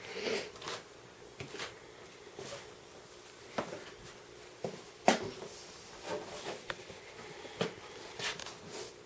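Irregular knocks, clicks and scuffs of people moving about a flood-wrecked room, with one sharper knock about five seconds in.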